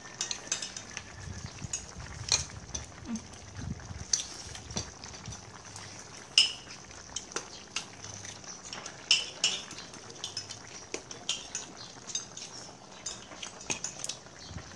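Irregular clinks and taps of chopsticks and metal spoons against ceramic bowls and a stainless steel hot pot during a meal, over a steady high hiss.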